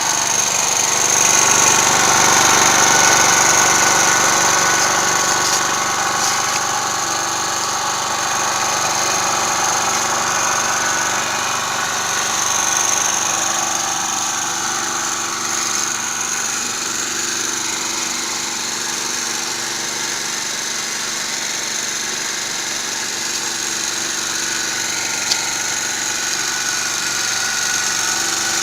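Small petrol generator engine running steadily on LPG (cooking gas) through a dual-fuel gas carburetor, a little louder for a few seconds near the start, with a single sharp click near the end.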